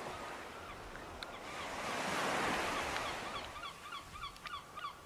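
Small sea waves washing on a sandy shore, swelling about two seconds in. Over them comes a run of short, repeated high calls, about three a second.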